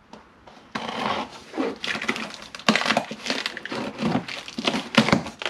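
A cardboard box being slit and pulled open: uneven scraping, rasping and tearing of cardboard, starting about three-quarters of a second in, with a couple of sharper cracks.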